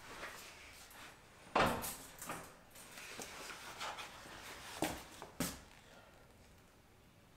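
Household handling sounds: a sharp thump about a second and a half in, like a drawer or cupboard being shut, then soft paper rustling and two light steps of slippers on a wooden floor.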